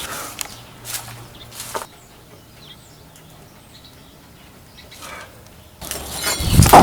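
A few light knocks, then a sudden loud clatter near the end: a thrown knife landing.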